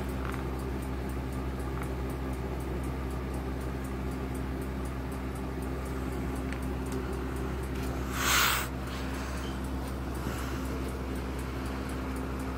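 Seth Thomas Legacy 3W mechanical clock ticking steadily over a steady low hum, with a brief loud rustle of handling about eight seconds in.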